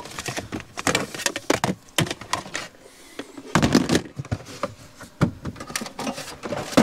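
Camp tableware being fetched and handled: a run of irregular clatters and knocks, with a heavier thump about three and a half seconds in.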